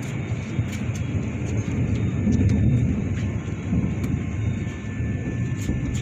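Distant thunder rumbling low and unevenly, swelling about two seconds in, with faint scattered clicks.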